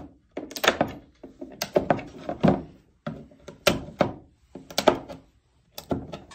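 Pointed end of a skateboard multi-tool being pushed through grip tape into the deck's hardware holes: a series of thunks and gritty scrapes, roughly one a second.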